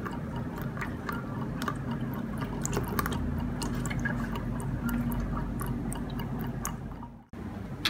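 Green coolant from a PC water-cooling loop trickling out of a thin drain tube into a plastic bowl, a steady running of liquid with small drips and clicks. The sound cuts out briefly near the end.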